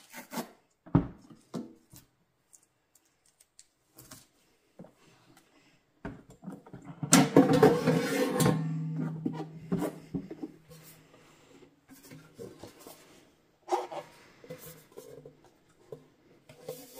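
Plastic clicks and knocks as an air fryer's basket drawer and its non-stick basket are handled and pulled open. About seven seconds in comes one louder clattering slide of the drawer, with a low ring that dies away over a second or so.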